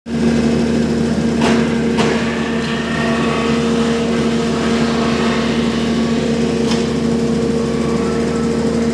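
Electric sawdust plant machine running with a steady humming drone, just started up. A few short sharp knocks come through it, two at about one and a half and two seconds in and one near seven seconds.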